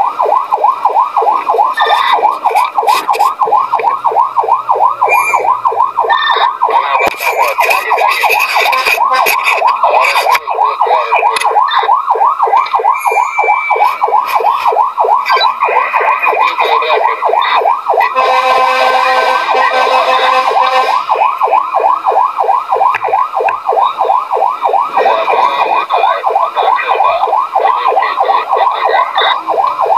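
Fire engine siren yelping, its pitch sweeping rapidly up and down several times a second. A steady horn blast sounds over it for a few seconds past the middle.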